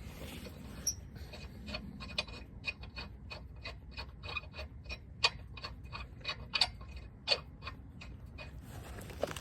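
Rapid metallic clicking, roughly three clicks a second and somewhat uneven, typical of a ratchet wrench being worked on a lug nut.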